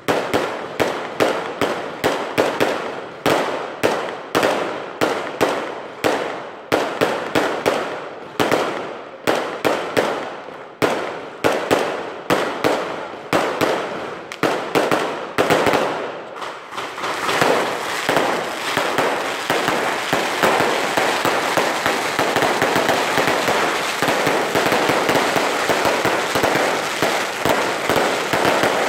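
Fireworks firing a rapid series of sharp bangs, one after another, then about halfway through merging into a dense, continuous crackling barrage.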